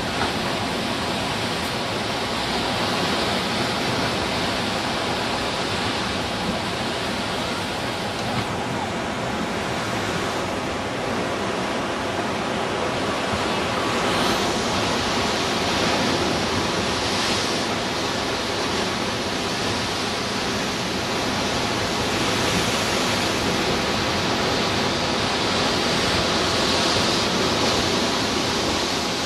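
Ocean surf washing in over a rocky shoreline: a steady rush of water that swells a few times as waves break.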